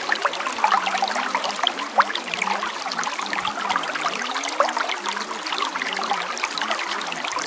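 Running water, trickling and bubbling steadily like a small stream, with many small splashes and no break.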